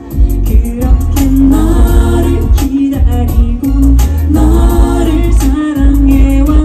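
Female vocal group singing live with a full band behind them: layered sung voices over bass and drums, loud and dense as picked up by a camera in the audience.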